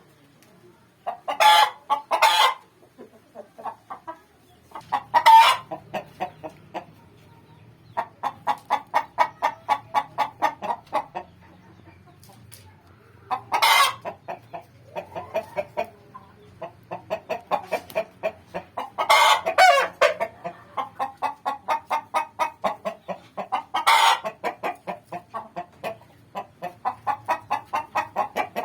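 Domestic hen clucking in runs of rapid clucks, about four a second, broken by several louder, drawn-out squawks: the calling a hen makes when she is about to lay an egg.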